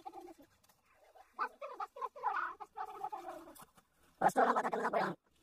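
An animal calling: several short calls that rise and fall in pitch, then a louder, harsher call about four seconds in.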